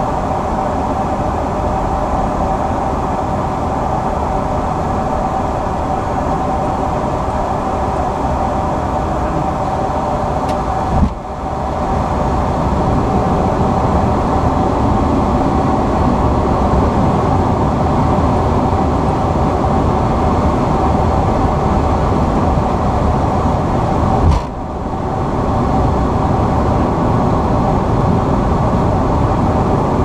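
Steady cockpit noise of an Embraer 175 airliner on approach: airflow and engine hum, with a steady tone running through it. Twice the noise drops out briefly just after a click.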